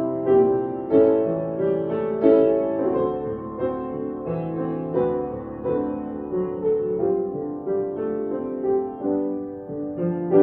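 Piano music: a melody of single struck notes over sustained chords.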